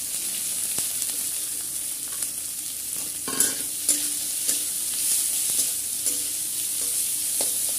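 Sliced onions sizzling in hot oil in a metal kadai, with a metal spatula scraping and knocking against the pan as they are stirred. A scrape a little past three seconds in is the loudest.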